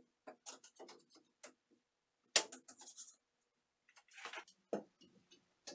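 Light metal clicks and taps from a steel drop-ceiling cross tee being handled, with one sharper clack about two seconds in, then a rustle and a dull thump near the end.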